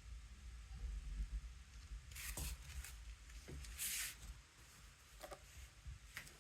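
Faint handling noises of the smart radiator thermostat or its valve adapter being fitted by hand: a few light clicks and a short scrape a little after two seconds in, a brief rustling scrape near four seconds, and small clicks later.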